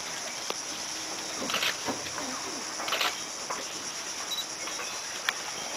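Steady high-pitched drone of rainforest insects, with a few brief rustling noises about one and a half and three seconds in.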